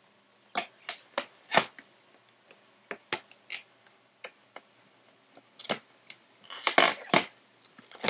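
Scissors cutting and scraping at a cardboard mailer and its packing. Irregular sharp snips and clicks, with a busier run of cutting and cardboard rustling near the end.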